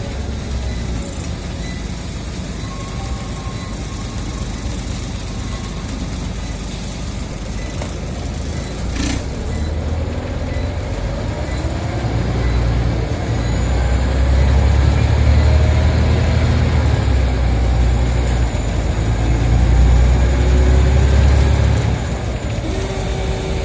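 Scania Omnicity single-decker bus heard from inside while driving, its engine and running gear giving a steady low rumble. The rumble grows louder through the second half as the engine works harder, then eases off near the end. A single sharp click about nine seconds in.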